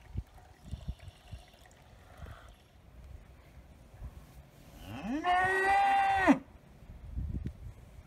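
A Galloway bull mooing once, about five seconds in. The call lasts about a second and a half: it rises at the start, holds a steady pitch, then stops abruptly.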